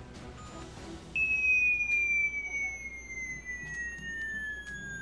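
Electronic Talking Battleship's synthesized falling-missile whistle from its speaker: a single electronic tone that starts abruptly about a second in and glides slowly and steadily down in pitch for about four seconds.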